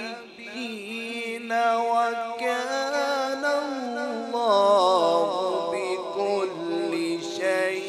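A man's voice reciting the Quran in the melodic, drawn-out tilawat style, holding long ornamented notes that waver in pitch. The voice climbs higher and louder about halfway through.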